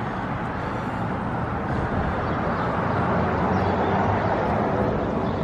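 Road traffic on a busy town main street: a steady wash of tyre and engine noise that swells as a vehicle passes, loudest about four seconds in.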